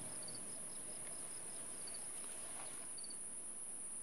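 Faint outdoor insect ambience: crickets chirping, with short chirps in little groups repeating throughout, over a steady high-pitched hiss.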